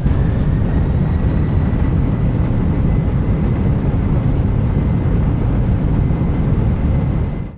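Commercial airliner's engine noise heard on board: a loud, steady rumble with a thin high whine over it, cutting off suddenly near the end.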